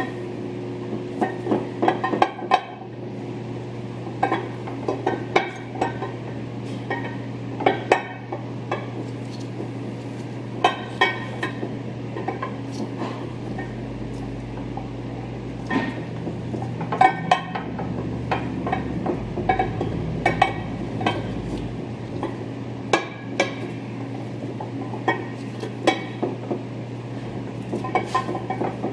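Irregular light metallic clinks and knocks as the two halves of a Toyota Land Cruiser 200 Series front differential case are wiggled and rocked together by hand, over a steady low hum.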